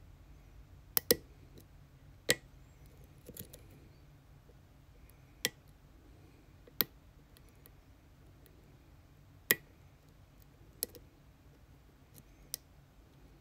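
Lock-picking tools working a pin-tumbler challenge lock: a series of sharp clicks at irregular intervals, about nine in all, sometimes a couple close together and sometimes seconds apart.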